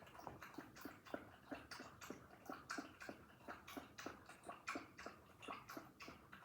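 A dog lapping liquid with its tongue, a faint steady run of wet laps about two to three a second.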